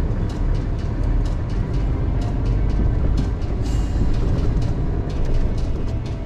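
Large truck's diesel engine running with a steady low rumble, with light irregular clicks over it and a short hiss about four seconds in.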